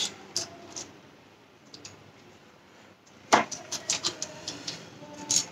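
Eating and food-handling noises: sharp clicks of utensils and takeaway containers. There is a knock about three seconds in, followed by a quick run of clicks.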